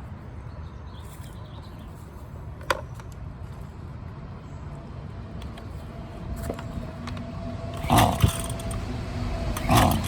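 Husqvarna 128LD two-stroke string trimmer being pull-started on full choke during a cold start. The recoil starter cord is pulled twice near the end, and after the first pull the engine turns over briefly with a short hum. A single click comes about a third of the way in.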